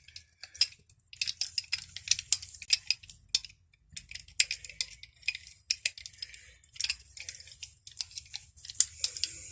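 Steel spanners being handled and waxed, clinking lightly against each other and the bench in irregular clusters of small taps and clicks.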